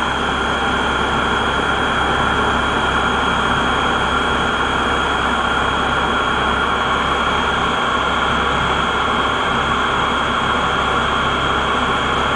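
Waste-vegetable-oil-fired boiler's burner running: a steady, even rush with a faint high whine in it.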